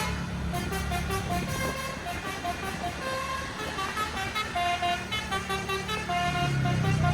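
Bus basuri (telolet) horn playing a tune of short stepped notes over the rumble of the bus's engine. The engine sound grows deeper and louder near the end.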